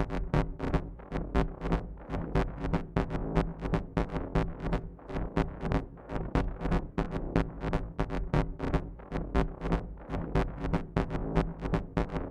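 Electronic dance music with a steady, fast beat of about four hits a second over sustained synthesizer tones.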